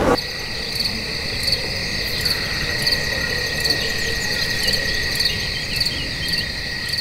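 Crickets chirping steadily, a continuous high trill with a regular pulse about twice a second.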